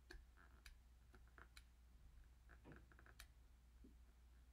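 Near silence: faint room tone with a few scattered, sharp clicks.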